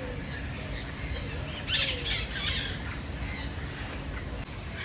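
A bird squawking: one loud, harsh call about two seconds in, with short high chirps from other birds around it.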